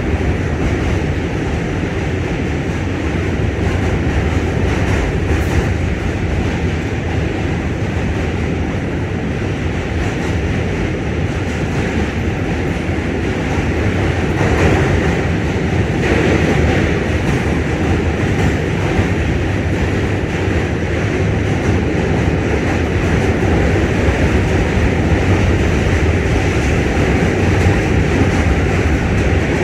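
Onboard running noise of an R46 New York subway car crossing a steel bridge at speed: a steady rumble and rattle of wheels on the rails and of the car, a little louder from about halfway through.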